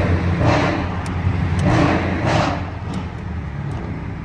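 Dodge Challenger Scat Pack's 392 V8 running steadily under cruising load, heard from inside the cabin at about 50 mph. There are three swells of rushing road and wind noise in the first two and a half seconds.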